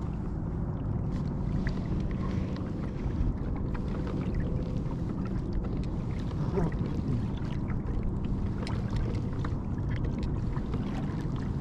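Plastic pedal-drive kayak moving across rippled water: a steady low rush of water along the hull, with many small ticks and splashes.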